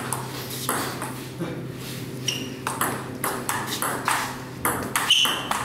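Table tennis ball clicking off the rackets and bouncing on the table in a rally, a hit about every half second, over a steady low hum.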